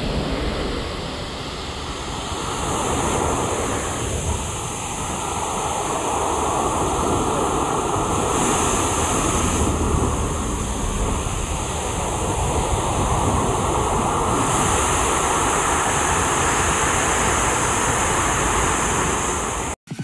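Water pouring over a weir and falling onto rocks: a steady rushing, with wind buffeting the microphone.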